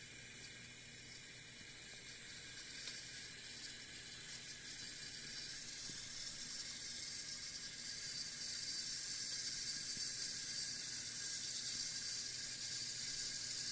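Whirlpool WDF760SADM dishwasher filling with water at the start of a cycle: a steady hiss of water running into the tub that grows slightly louder.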